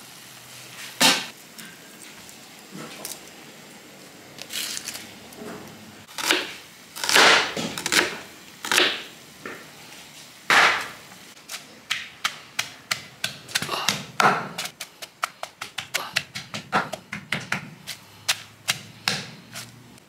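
Kitchen knife chopping on a cutting board: a few scattered knocks and clatters, then a fast, even run of sharp chops, about five a second, through the second half.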